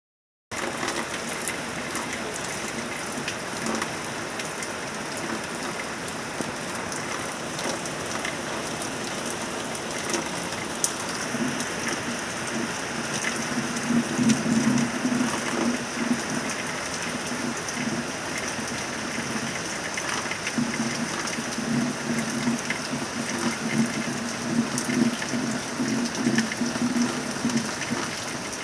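Rain falling, a steady hiss with scattered drop ticks. A deeper rushing, likely water running or drumming, swells about eleven seconds in and again around twenty seconds.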